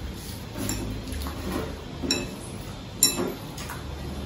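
Kitchen utensils handled and clinking against a bowl, with a few light clinks, the sharpest about two and three seconds in.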